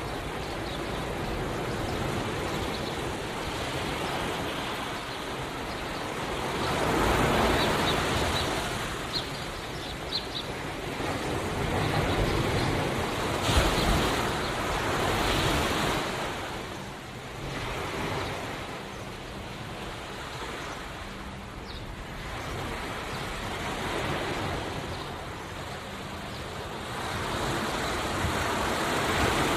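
Ocean waves rolling in and drawing back from the shore. The wash rises and falls in slow surges every several seconds.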